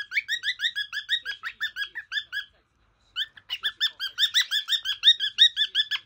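Cockatiel singing: quick repeated chirping notes, about five a second, in two runs with a short break about two and a half seconds in.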